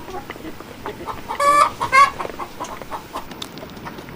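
Chickens clucking, with two short, loud pitched calls about one and a half and two seconds in.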